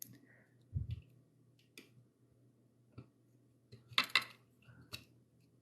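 Small scattered clicks and taps of fingers and tools fiddling a transistor's leads into the holes of a circuit board, with a dull bump near the start and the loudest cluster of clicks about four seconds in.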